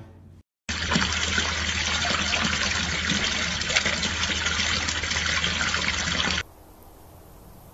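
Running water splashing steadily, starting just under a second in. It cuts off suddenly near the end and gives way to a faint hiss.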